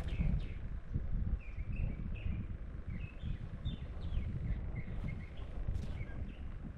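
Wind buffeting the microphone in a gusty low rumble, with birds making many short chirping calls.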